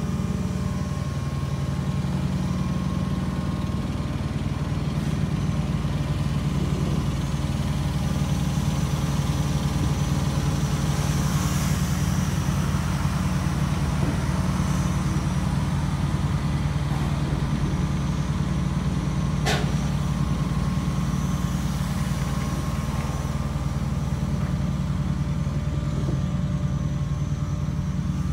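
A steady low motor hum with a few faint steady higher tones, and a single sharp click about 19 seconds in.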